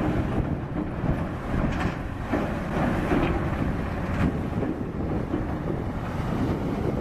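Steady low rumble with wind noise on the microphone, swelling briefly a few times.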